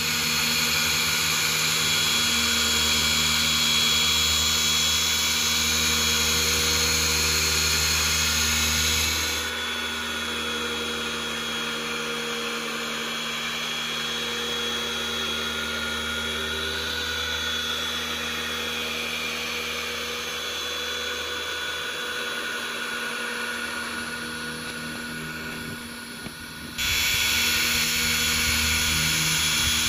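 Corded electric car polisher running steadily, buffing a medium-cut all-in-one compound into the paint of a car's hood. Its sound drops a little about nine seconds in and comes back up suddenly a few seconds before the end.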